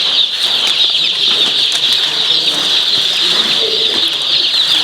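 A crowd of young chickens (chicks) peeping together: a dense, unbroken chorus of quick, high cheeps.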